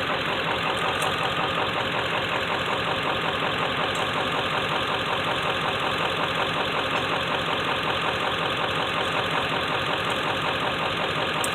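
A vehicle engine idling steadily, with an even, unchanging run.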